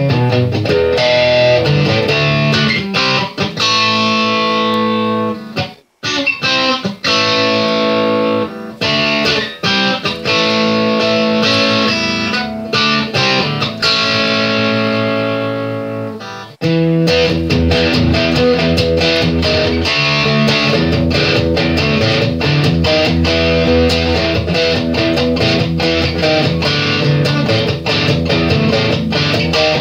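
Background music led by guitar, with a brief break about six seconds in and a fuller, deeper part coming in suddenly about halfway through.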